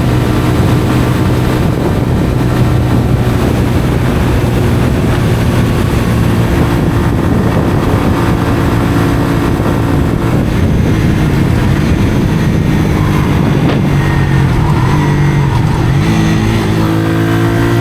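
Honda CBR125R's single-cylinder four-stroke engine through a Mivv aftermarket exhaust, running under way with a steady note, dipping and rising in pitch a few times in the second half, then climbing in pitch near the end as it accelerates.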